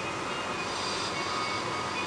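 Steady hiss of tyres on a wet road, heard from inside a moving car in the rain, with faint high tones that come and go.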